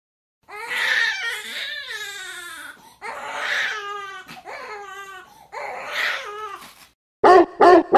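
Dog crying out during a vaccine booster injection: three long whining cries, each falling in pitch, then three short sharp yelps near the end.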